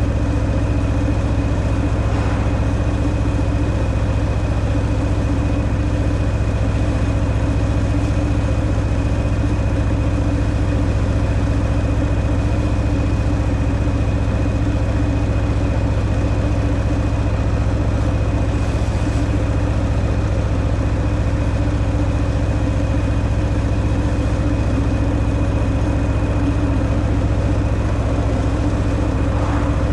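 Harley-Davidson Milwaukee-Eight 114 V-twin with stock exhaust running at a steady, unchanging engine speed, without revving up or down.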